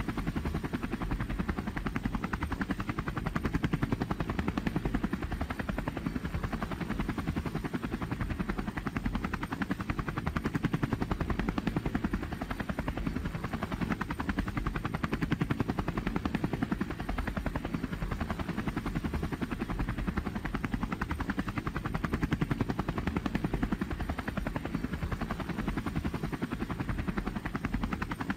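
Robinson R44 Clipper II helicopter in flight, heard from inside the cabin: a steady, rapid rotor chop over the drone of its piston engine.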